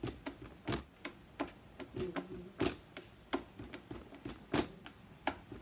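Hand drumming: sharp taps in a steady beat, a stronger tap about every two-thirds of a second with lighter taps between.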